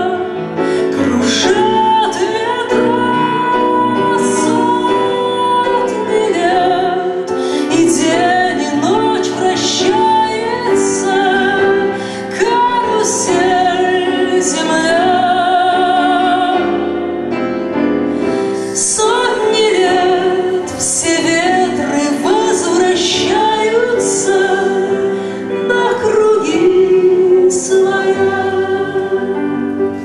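A woman singing a slow song into a microphone with vibrato, over instrumental accompaniment.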